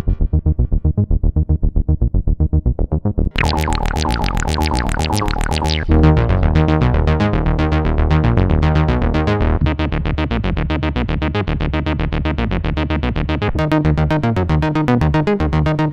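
Waldorf Microwave Mk1 hybrid wavetable synthesizer playing a fast sequenced pattern of repeating notes over a heavy bass. A bright, high layer comes in about three seconds in, and its top drops away around six seconds.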